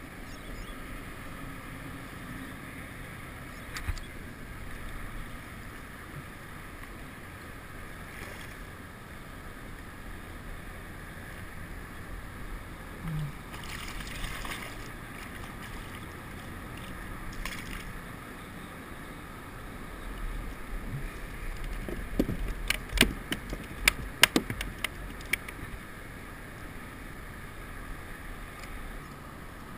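Steady low hiss of water around a kayak. About halfway through, a short splash as a hooked flathead thrashes at the surface beside the hull. Later, a quick run of sharp knocks and clicks, the loudest sounds here.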